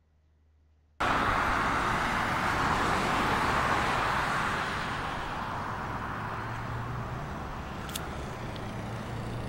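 Road traffic on a multi-lane highway: cars passing at speed, a steady rush of tyre and engine noise that starts suddenly about a second in, loudest at first and then easing off.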